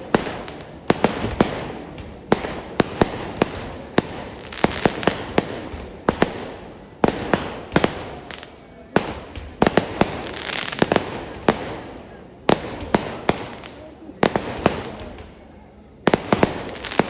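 Temple-festival fireworks display: a rapid, irregular barrage of loud bangs, several a second in clusters with brief lulls, each bang trailing off in a rolling echo.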